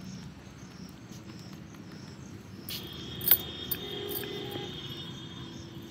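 Wooden rolling pin rolling out roti dough on a marble rolling board: a faint low rumble with a sharp knock about three seconds in. High insect chirping pulses steadily behind it, and a thin steady whine joins about three seconds in.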